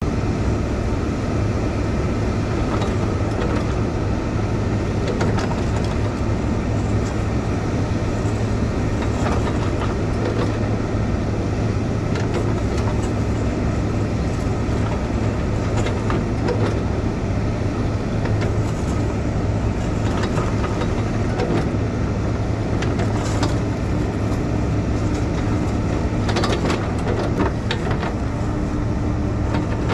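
Heavy diesel equipment running steadily with a strong low hum, with scattered knocks and clanks throughout.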